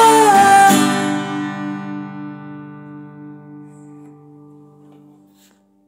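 A man's sung note ends in the first second over a strummed acoustic guitar chord. The final chord then rings out and fades slowly, dying away after about five seconds.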